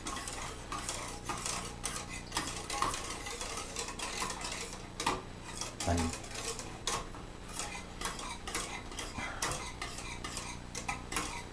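Whisk stirring pudding in a metal pot: a steady run of irregular small clinks and scrapes against the pot, over a faint steady hum.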